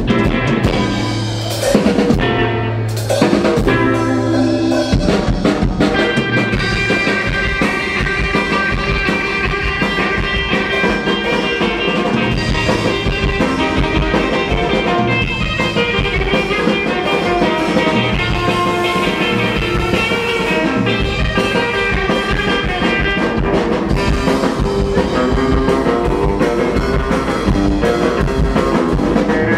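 Rockabilly band playing live: electric guitar over a drum kit, with a couple of brief breaks near the start before the band plays on steadily.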